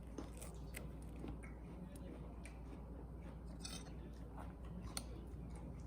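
Faint, scattered light clicks and clinks of small objects being handled, over a steady low hum.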